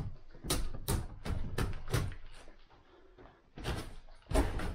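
Footsteps on a rotten wooden floor with exposed joists: a run of knocks and crunches from boards and crumbling subfloor underfoot, a quick series in the first two seconds, then a pause and a few more near the end.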